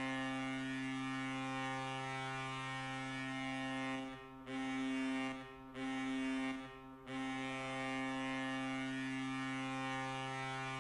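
Hockey arena goal horn blowing a low, steady note: a long blast, two short blasts about four to seven seconds in, then another long blast.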